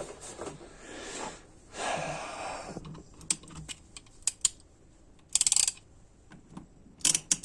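Ratchet head of a 1/2-inch drive torque wrench being worked, clicking in scattered single clicks and short quick runs, with a dense run of clicks about five and a half seconds in.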